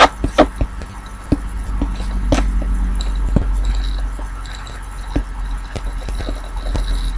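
Computer mouse clicking: a few sharp clicks, two close together at the start and another about two seconds in, then fainter ones, over a steady low electrical hum.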